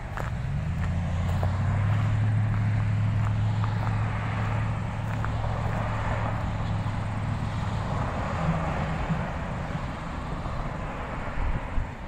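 A steady low engine drone that swells about a second in and fades away after about eight seconds.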